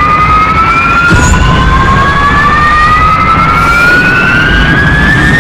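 Jet aircraft taking off in succession: a loud jet roar under a high whine that rises steadily in pitch, with a fresh rising whine joining about a second in.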